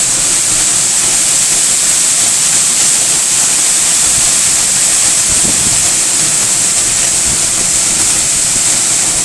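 A 104-foot waterfall in spate, a heavy flow of water falling and crashing onto the rocks below with a steady, powerful rushing noise.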